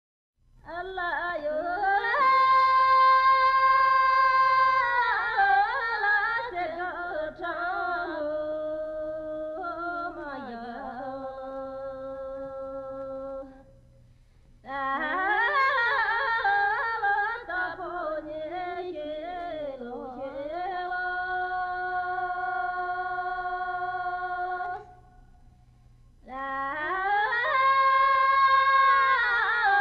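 Unaccompanied solo voice singing a Tibetan pastoral folk air: long, high held notes with wavering ornaments and slides between them. The song comes in three phrases, with breath pauses about 14 and 25 seconds in.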